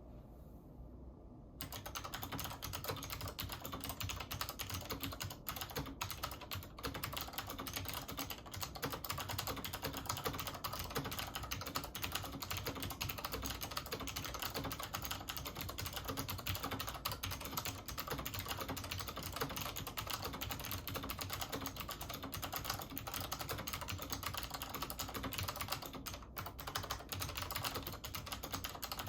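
Continuous fast typing on a Chicony KB-5181 keyboard with Alps-mount SMK clicky switches (Monterey Blue), a dense run of sharp key clicks starting about a second and a half in.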